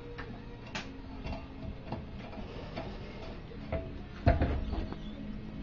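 Irregular light metallic clicks and ticks as the small locking bolts are fitted into a lawnmower's blade carrier, with a louder knock about four seconds in.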